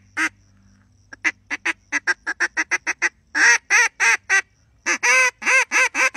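Mouth-blown reed duck call imitating a hen duck. A quick run of short, soft clucks comes first, then a few loud quacks, and near the end a steady series of loud quacks about three a second.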